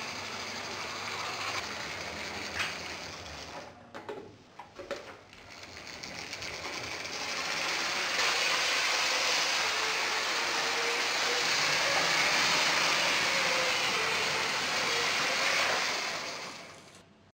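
Motorised LEGO Metroliner train's gear motor whirring and its wheels running on plastic track. It grows louder from about six seconds in, stays loud as the train passes close by, and fades out near the end.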